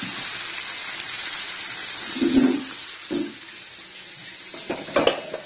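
Capcay vegetables sizzling in a hot wok just after a little water has been added, a steady hiss that fades about two seconds in. Then come a few knocks and a clatter of cookware being handled.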